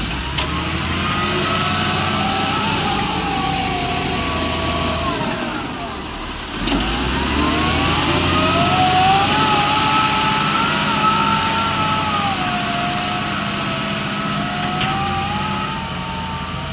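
Excavator diesel engine running under load, its hydraulic whine rising and falling as the machine works. The sound dips briefly about six seconds in, then picks up again.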